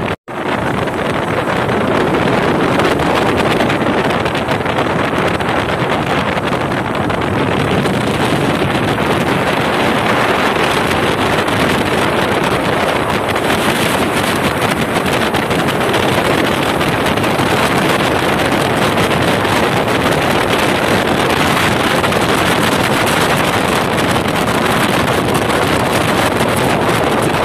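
Small motorboat running steadily across open water: a continuous rush of engine, hull and water noise, with wind buffeting the microphone. The sound drops out for a split second right at the start.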